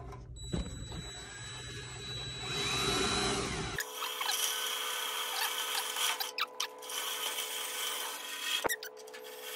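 Cordless drill with a spot-weld cutter running and cutting into the sheet-steel rocker panel of a 1969 Camaro, drilling out the spot welds that hold the panel on. The pitch rises and falls for the first few seconds, and after a sudden change near four seconds in it becomes a steadier whine with small clicks.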